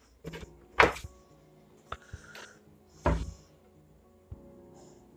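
A ruler handled on a cutting table: two sharp knocks, about a second in and about three seconds in, with lighter taps and rustling between as it is picked up and laid along the cloth. Faint background music runs underneath.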